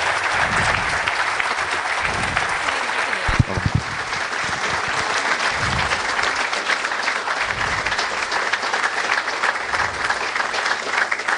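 Audience applauding steadily, with a brief low thump about three and a half seconds in.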